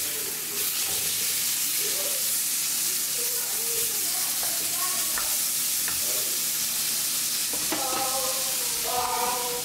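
Hamburger patties sizzling steadily as they fry in a skillet.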